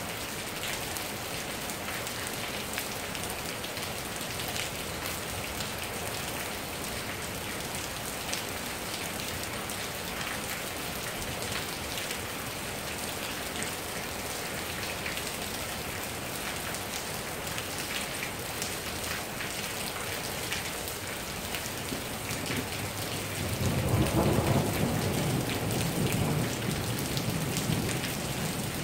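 Steady rain falling on the ground and surfaces, then a loud, low roll of thunder near the end.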